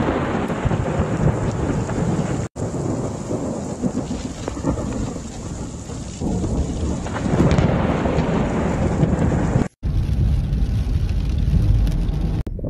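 Thunderstorm: thunder rumbling over steady heavy rain, the rumble swelling louder in the second half. The sound drops out for a moment twice.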